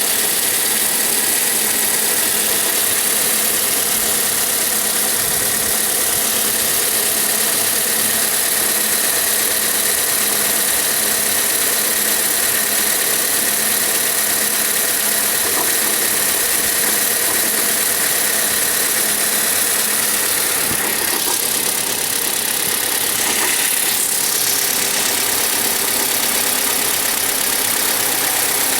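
Car engine idling steadily, close to the power steering pump, with an extraneous noise coming from around the pump and its drive gears.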